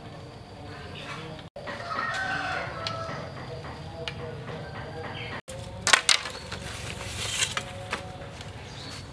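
A rooster crowing in the background about two seconds in. After that, a few sharp knocks of bamboo being handled, the loudest about six seconds in.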